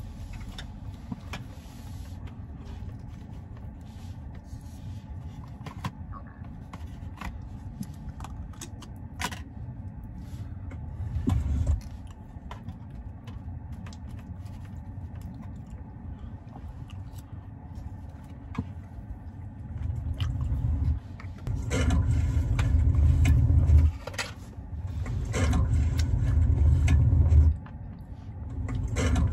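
Car cabin ambience: a steady low rumble with scattered light clicks and scrapes as food is handled in a takeout container. Louder low rumbling swells lasting a few seconds come around the middle and several times near the end.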